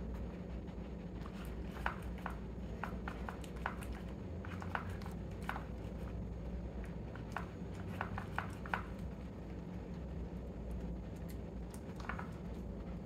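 Scottish terrier nosing through a plastic treat puzzle toy: irregular light clicks and taps as its snout knocks the plastic lids and compartments, thicker for several seconds and then again near the end, over a steady low hum.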